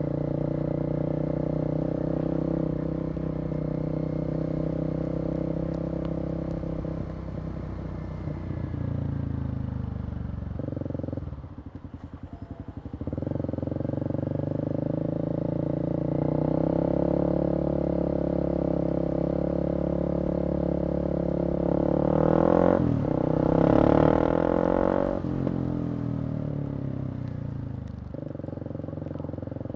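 Kawasaki KLX250 single-cylinder four-stroke engine running on the move, its pitch rising and falling with throttle and gear changes. It drops away briefly about twelve seconds in, then picks up again, and revs highest a little over twenty seconds in.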